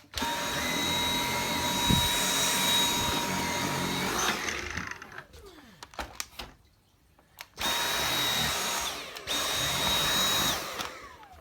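Dyson V8 cordless stick vacuum's motor running with a high steady whine on a rug. It cuts out about four seconds in and winds down, then starts again a few seconds later. After a brief dropout it stops and winds down once more near the end.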